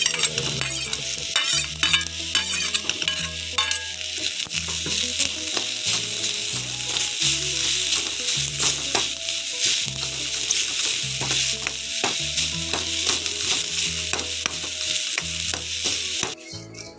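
Grated coconut with shallots and curry leaves sizzling in hot coconut oil in a metal kadai, while a steel spoon stirs it and scrapes against the pan in many short clicks. This is the start of dry-roasting the coconut for a roasted-coconut curry paste. The sizzle cuts off suddenly near the end.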